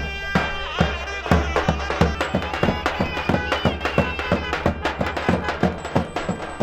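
Traditional Turkish folk dance music: a reedy wind instrument plays a sustained, ornamented melody over fast, regular drum beats.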